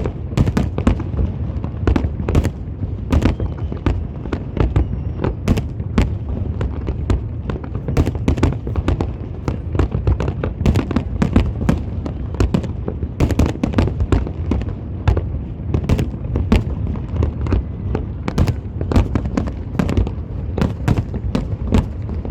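Fireworks display: a dense, continuous barrage of shell bursts and crackling, several sharp bangs a second over a steady low rumble.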